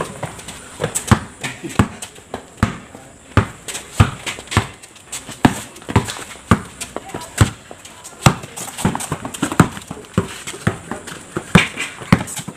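Basketball bounces and sneaker footsteps on a concrete court: a run of sharp, irregular thuds, roughly two a second.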